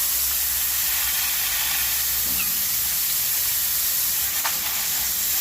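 A steady hiss, with one short faint chirp about halfway through and a single sharp tick near the end.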